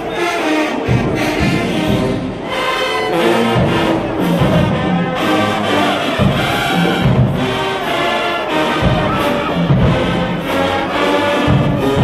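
Large marching band playing: full brass section with sousaphones on the low notes and regular drum hits.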